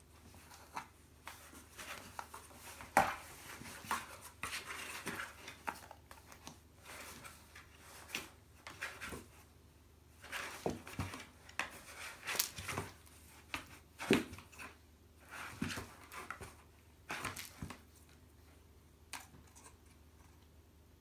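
Ragdoll cat pawing at a waved toy from inside a cardboard box: irregular rustling, scratching and light knocks on the cardboard, with a few sharper taps.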